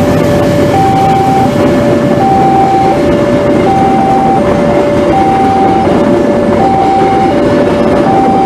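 Passenger coaches rolling past over a level crossing, with steady wheel and rail noise. Over it, the crossing's warning alarm sounds a two-tone signal, alternating high and low about every 0.7 seconds, while the train occupies the crossing.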